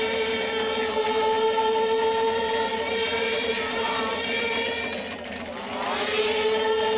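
Group of Papua New Guinean singers chanting on a long held drone note. The note dips and slides in pitch about five to six seconds in, then steadies again.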